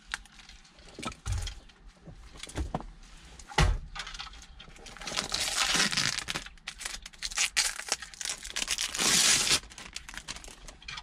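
Thin plastic bag crinkling and rustling as a car stereo head unit is slid out of it, a long dense stretch in the second half. Before it come a few sharp clicks and knocks of the unit and its plugs being handled.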